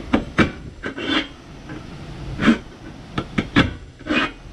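Knife blade sawing and levering through the thick sheet metal of a 5-litre beer keg can: about nine short scraping crunches at irregular intervals as the cut is worked forward stroke by stroke.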